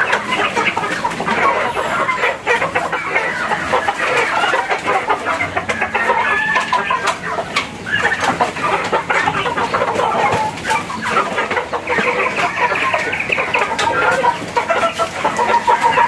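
A flock of chickens clucking and squawking, many calls overlapping without a break.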